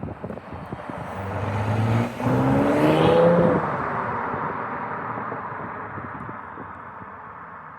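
Audi S5 V6 with a resonator-deleted exhaust accelerating, rising in pitch and getting louder, with a brief dip about two seconds in. It then fades as the car pulls away.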